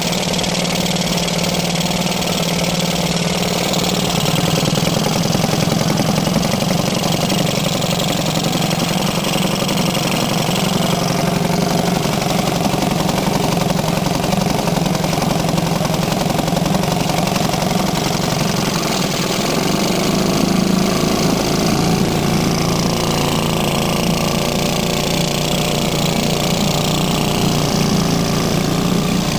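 1956 Riptide Fisherman two-stroke outboard motor running steadily with its propeller in a test barrel of water, its note shifting slightly about two-thirds of the way through.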